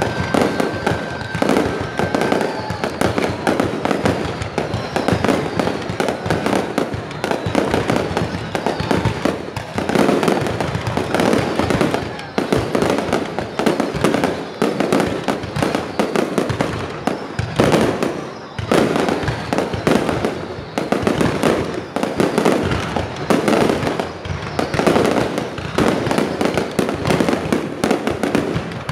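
Fireworks display: a continuous barrage of aerial shells bursting, dense rapid bangs and crackles with no pause, and a high steady whistle over the first two seconds or so.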